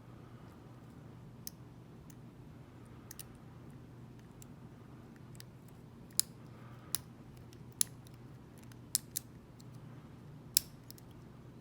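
Lock pick and tension wrench working the pin stack of a Mako 427 lock: irregular small metallic clicks, with a handful of sharper, louder clicks in the second half.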